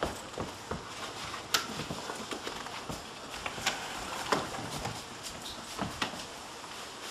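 A limp body dragged across a wooden floor: clothing rustling and shoes scuffing, with irregular knocks and clicks. The sharpest clicks come about a second and a half in and again past four seconds.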